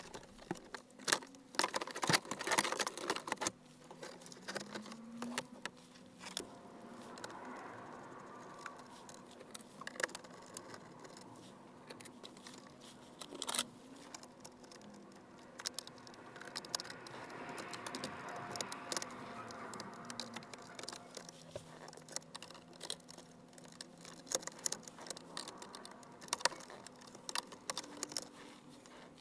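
Plastic dashboard trim and tools being handled: irregular clicks, taps and small knocks, with stretches of soft rustling and a faint steady hum.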